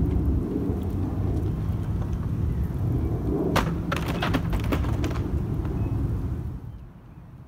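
A low rumble with a faint steady hum. A cluster of sharp clicks comes a little after midway, and the rumble falls away about a second before the end.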